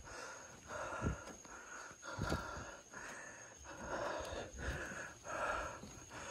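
A person breathing hard and fast, about one breath a second, with a few footfalls thumping on stairs.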